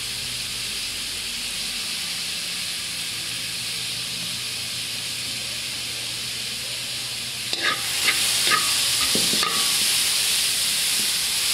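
Green beans and diced carrot sizzling in oil in a wok, a steady hiss. About seven and a half seconds in the sizzling grows louder as the vegetables are stirred, with a few scrapes and clicks of the spatula against the wok.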